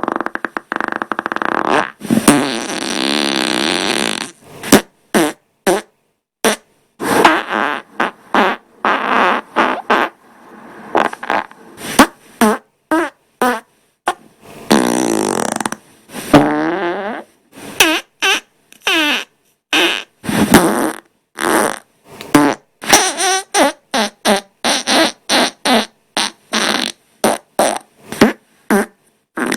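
Farts played back to back in a rapid string with abrupt cuts between them. A few are long and drawn out, with a wavering pitch, and most are short blasts that come one or two a second in the second half.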